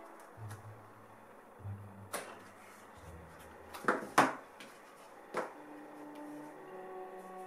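Cardboard box and whetstone being handled as the stone is lifted out of its foam insert: a few dull rubbing thuds, then sharp knocks, a close pair about four seconds in being the loudest and one more a little after five seconds. Faint background music underneath.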